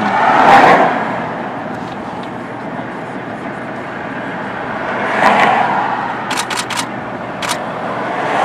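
Street traffic: cars pass by, the noise swelling and fading once near the start and again about five seconds in, with another coming up at the end. A quick run of sharp clicks sounds between the two.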